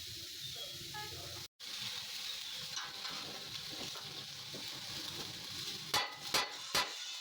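Steady sizzling crackle of electric arc welding on the steel rim plate, broken by a brief cut about a second and a half in. Near the end come three sharp, ringing hammer blows on steel, about half a second apart.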